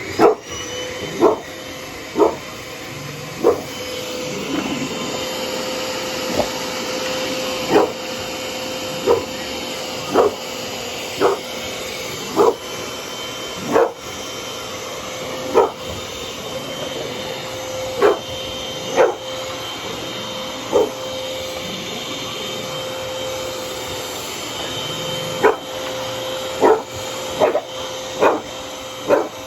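A vacuum cleaner switches on and runs steadily with a high whine. A bully-breed dog barks at it over and over, in single sharp barks every second or two.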